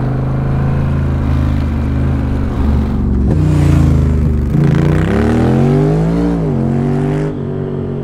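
Honda Rebel 1100's parallel-twin engine through a Coffman's Shorty slip-on exhaust, running steadily in second gear at about 30 mph. About three seconds in it accelerates, the pitch climbing, dropping at a gear change and climbing again, then falling away as the throttle closes near the end.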